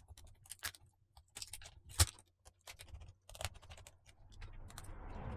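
Small sharp clicks and ticks of a screwdriver and small screws being worked out of the metal plate on the back of a laptop's top case, with one louder click about two seconds in and a short rustling scrape near the end.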